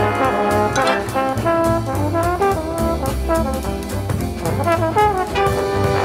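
Light library music in a big-band jazz style: a brass section of trombones and trumpets playing over a steady drum beat.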